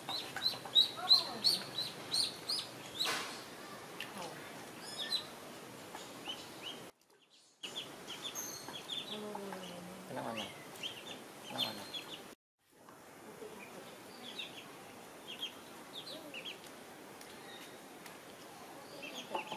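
Ducklings peeping over and over in short, high chirps, loudest in the first few seconds, with two brief drops to silence.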